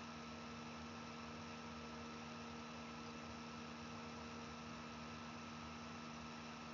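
Steady electrical hum with a faint hiss, unchanging throughout.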